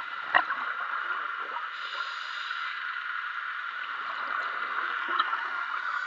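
Underwater noise picked up through a camera's housing on a scuba dive: a steady hiss with faint bubbling and crackle, and a sharp click about half a second in and another near the end.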